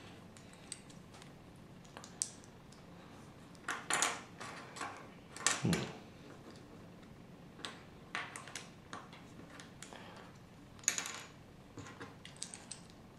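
Hard plastic Lego bricks clicking and rattling as they are handled, pressed together and set down on a wooden table: scattered small clicks in short clusters, with one duller knock about halfway through.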